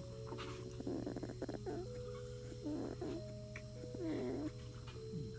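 Sleeping four-week-old Scottish terrier puppy making soft whimpering noises in its sleep, a few short whimpers about a second apart.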